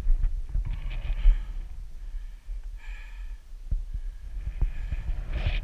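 Wind buffeting an action camera's microphone: an uneven low rumble with irregular thuds, and brief hissing gusts about a second in, near the middle and near the end.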